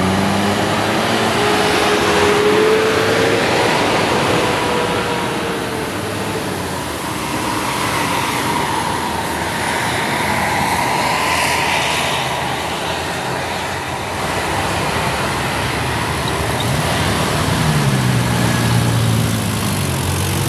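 Heavy traffic of buses and trucks on an uphill road: engines running over a steady rush of tyre and road noise. Near the end a deep engine note rises in pitch as a vehicle accelerates.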